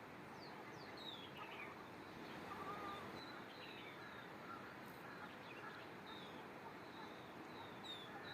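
Birds chirping: many short, high chirps, mostly sliding down in pitch, come irregularly and overlap, over a steady background hiss.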